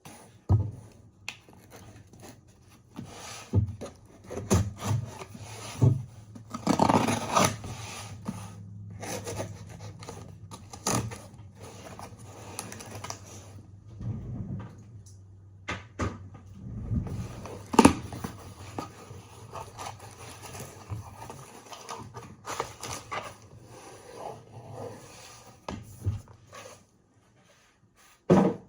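A small cardboard product box being handled and opened by hand: irregular rubbing, scraping and rustling, broken by short clicks and taps, with one sharper knock about eighteen seconds in.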